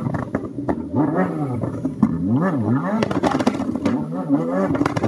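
Rally car engine revving up and down again and again as the car is reversed off the verge after running wide at a hairpin, with several sharp cracks around the middle.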